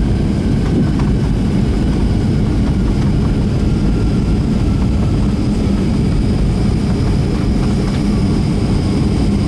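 Steady rumble of jet engines and airflow heard inside the passenger cabin of a Boeing 757-300 airliner, with a few faint steady whines above it.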